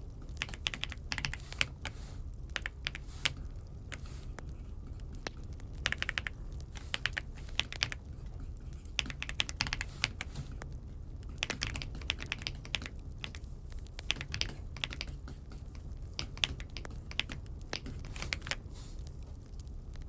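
Typing on an Aula F75 mechanical keyboard: irregular runs of quick key clicks with short pauses between them, over a low steady hum.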